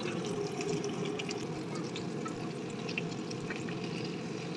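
Lamb shanks sizzling in hot oil in a frying pan as they brown, a steady sizzle with scattered small crackles.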